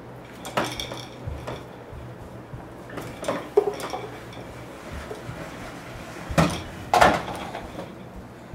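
Plastic ride-on toy clattering and knocking on the floor as a toddler pushes and handles it: a handful of separate sharp knocks, the loudest two close together near the end.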